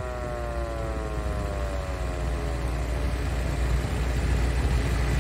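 6-volt Sterling 'Free Rolling' electric siren winding down, its pitch sliding steadily lower and fading out after about three seconds. Underneath, the Ford GPW jeep's four-cylinder engine idles with a low rumble that grows louder near the end.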